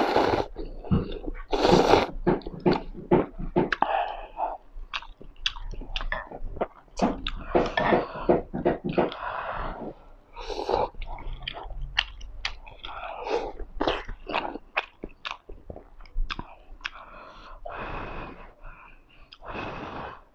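A person slurping instant noodles and chewing them: loud slurps near the start and again about two seconds in, then chewing with many small mouth clicks and a few more slurps.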